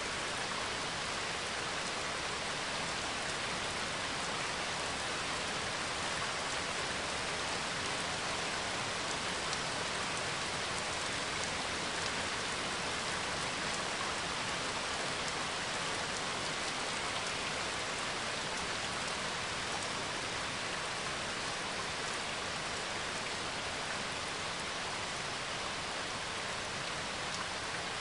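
Steady rainfall, an even hiss of rain on surfaces that does not let up.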